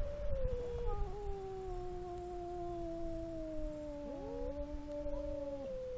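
Two domestic cats yowling at each other in a standoff: long, drawn-out, overlapping wails that slide slowly down in pitch, with a new rising yowl about four seconds in.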